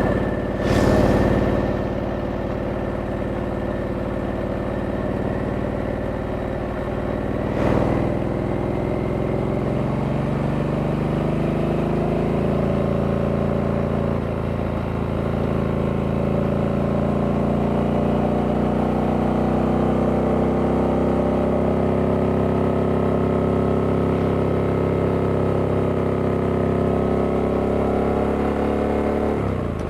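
Stock 2023 Harley-Davidson Sportster S, its 1250 cc liquid-cooled V-twin running steadily under way. There are two brief louder surges, about a second in and about eight seconds in, and the engine pitch climbs slowly through the second half as the bike gathers speed.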